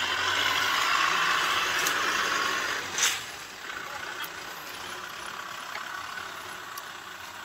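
Kubota M6040SU tractor's diesel engine running as the tractor drives past, towing a loaded trailer. A sharp knock comes about three seconds in, and the sound then drops and stays quieter as the tractor moves on and the trailer rolls by.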